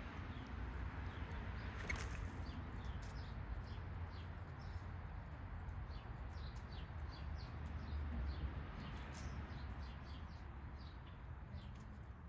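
Small backyard birds chirping with many short, high calls throughout, over a steady low rumble. There is one sharp noise about two seconds in.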